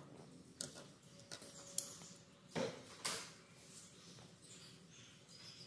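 Large steel shears snipping leather lining: a few faint, separate snips as the excess lining is trimmed off along the stitched edge of a sandal upper.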